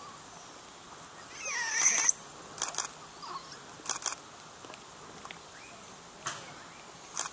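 A few high squeaky animal calls, the loudest a wavering call about two seconds in, followed by several short sharp clicks and chirps.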